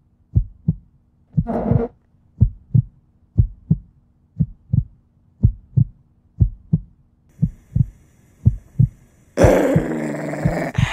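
Heartbeat sound effect in the soundtrack: paired low thumps, lub-dub, about once a second over a faint steady drone. About nine seconds in, a loud noisy swell cuts in.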